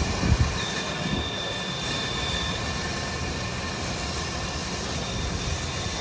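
Steady rumble of heavy construction machinery. A thin high-pitched whine comes in twice for about two seconds each, and a few low knocks sound in the first second.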